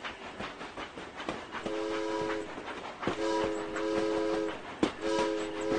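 Train horn sounding three blasts, a short one and then two longer ones, each a chord of several notes together, over a run of sharp irregular clicks.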